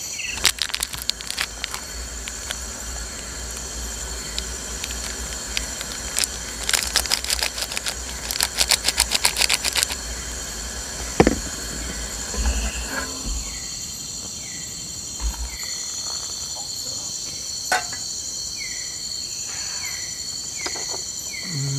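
Night forest insect chorus of crickets and other insects, a steady high buzzing with a short falling chirp that repeats about once a second, most plainly in the second half. Handling sounds sit over it: a run of rapid clicks about seven to ten seconds in, and a single sharp knock a second later.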